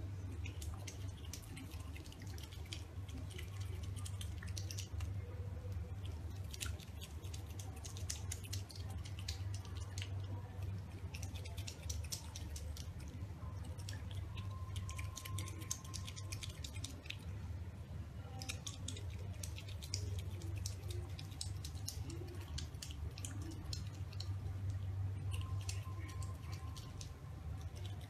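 An otter chewing dry kibble with its mouth open: irregular runs of small, sharp crunching clicks, over a steady low hum.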